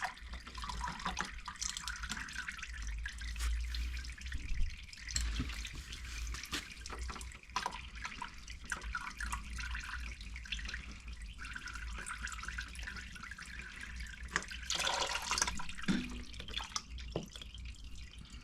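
Warm engine oil from a Triumph Tiger 800 draining into a drain pan: a steady trickle and drip, with scattered clicks and knocks, swelling louder for a moment near the end.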